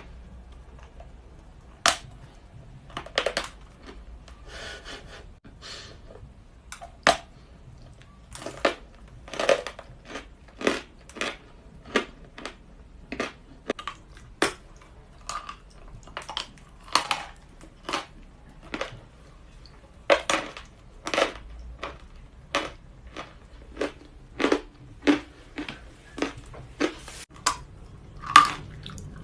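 Natural white chalk being bitten and chewed close to the microphone: crisp, irregular crunches about one or two a second, starting about two seconds in, with the loudest crunch near the end.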